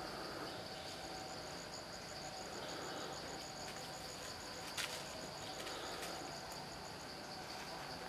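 Insects shrilling: a steady high buzz with a rapid, evenly pulsed chirp over it from about a second in until near the end, and one sharp click about midway.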